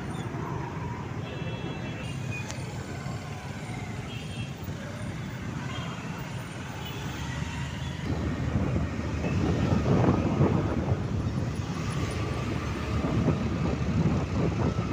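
Road traffic heard from the back of a moving motorcycle: the running engines of the bike and the surrounding motorbikes and cars in slow, congested traffic. From about eight seconds in the sound grows louder and gustier as the bike gathers speed on a clearer stretch and wind buffets the microphone.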